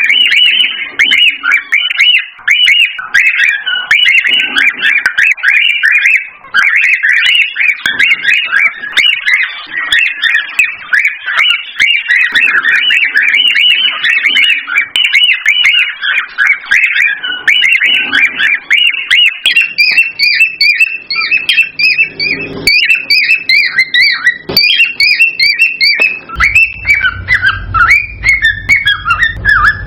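Cockatiels chattering and whistling, a dense, continuous stream of rapid chirps and short whistled notes. A second, higher-pitched series of chirps joins about two-thirds of the way through, and a low rumble sets in near the end.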